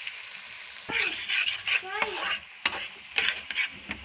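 A slotted spatula stirring and scraping urad dal as it fries in oil in a wok, with steady sizzling. From about a second in come repeated sharp scrapes and clicks of the spatula against the pan.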